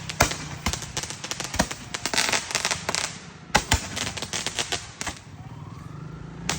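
Fireworks going off: a fast, irregular run of sharp pops and crackles that stops about five seconds in.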